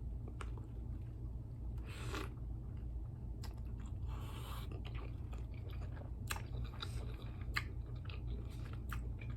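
Close-up chewing and biting of a taco, with crisp crunches and wet mouth clicks scattered irregularly. A steady low hum runs underneath.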